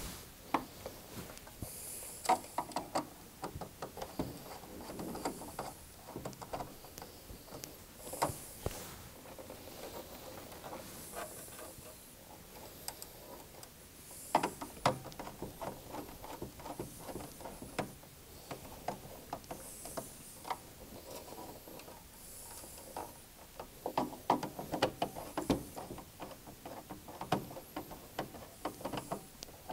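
Screwdriver turning and tightening the motor-cable terminal screws on an Invertek Optidrive E2 drive, with small clicks and ticks of metal on metal and handling of the wires. The clicking comes in several short clusters a few seconds apart.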